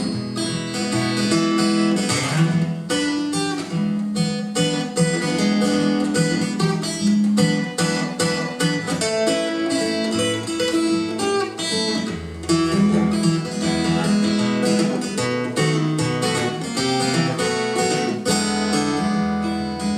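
Acoustic guitar playing a slow blues instrumental passage, a steady run of picked notes with no singing.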